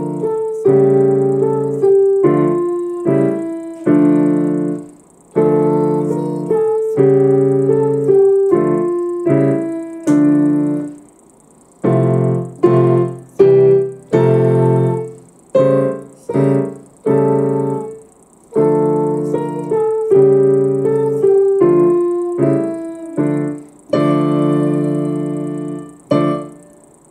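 A child playing a slow piece of chords with a melody on a digital piano. Each chord rings and fades, phrase after phrase, with two short breaks, and the piece ends on a held chord that dies away.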